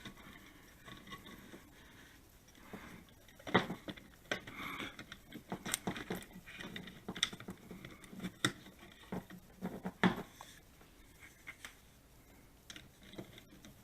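Scattered small clicks, taps and scrapes of hand work on a Wi-Fi wall switch in its electrical box: the wires being pushed back and a mounting screw turned a couple of turns with a screwdriver.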